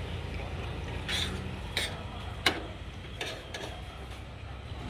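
Metal spoon and fork scraping and clinking on a plate while eating: a scrape about a second in, then a few sharp clinks, the loudest about two and a half seconds in.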